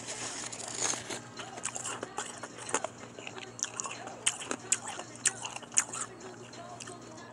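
A person biting and chewing a mix of powdery shaved ice and crushed ice: irregular sharp crunches, several a second, some much louder than others.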